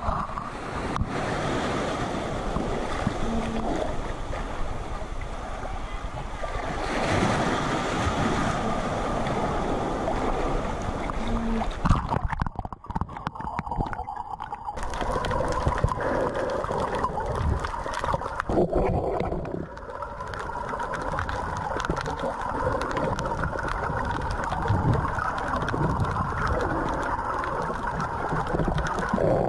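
Sea water sloshing and splashing around a waterproof action camera as a swimmer in fins wades in and goes under. About halfway through, the sound turns muffled and gurgling as the camera goes below the surface.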